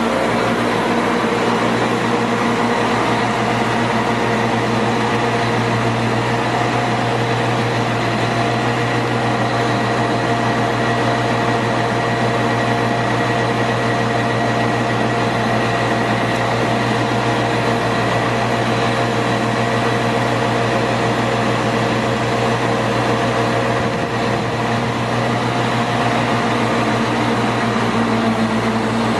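Tamrock Pantera 1500 drill rig's diesel engine running steadily at a constant speed, a loud even drone with several steady tones and no change in pitch.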